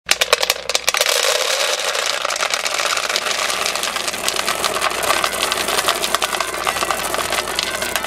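Dry dog-food kibble pouring into a dog bowl: a few separate pieces clatter onto the empty bowl at first, then a dense, steady rattle as the pile builds.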